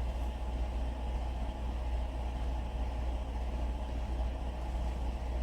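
Steady low drone of running machinery, even and unchanging, with no distinct knocks or clicks.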